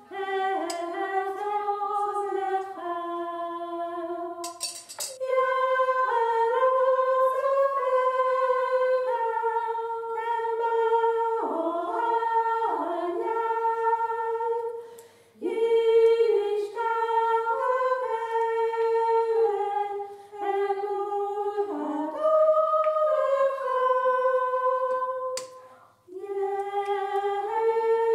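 A woman's voice singing an unaccompanied, wordless melody of held and gliding notes, in phrases with brief breaks about halfway through and near the end.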